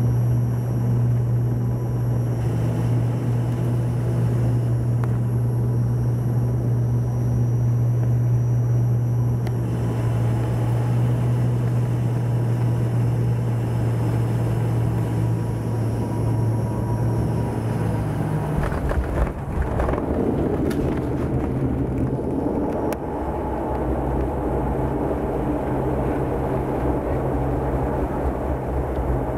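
Cabin noise of a passenger plane on final approach: a steady low engine drone. Around two-thirds of the way through, the wheels touch down with a brief jolt, and the drone gives way to the rougher rumble of the plane rolling down the runway.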